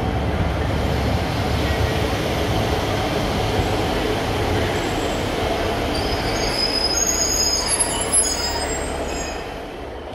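Northern Class 150 diesel multiple unit rolling slowly along the platform, its diesel engines rumbling under wheel and rail noise. In the last few seconds high-pitched brake squeal sets in as it slows to a stand, and the sound then eases off.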